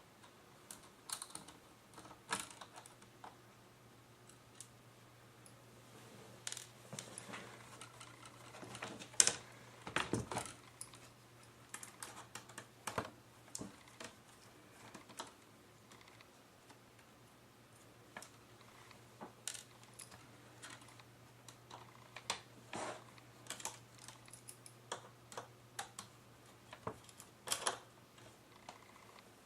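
Irregular light clicks and taps of a screwdriver, small screws and plastic laptop display parts being handled during disassembly, over a faint steady hum.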